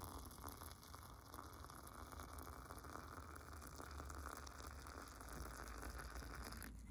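A thin stream of water poured into a cast-iron teapot's mesh infuser basket, splashing steadily onto dried herbs and rose buds; the pouring stops near the end.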